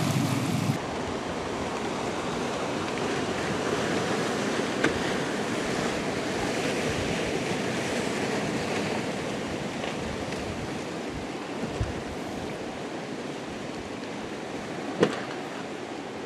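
Steady rush of water and waves, with wind on the microphone. A low hum cuts off suddenly about a second in, and there are a few faint knocks.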